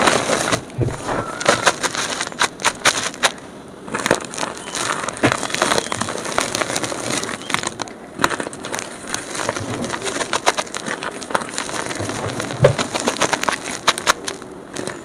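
Blocks of gym chalk being crushed and crumbled, a dense run of dry crackling crunches with short lulls about four and eight seconds in. The recording is played sped up.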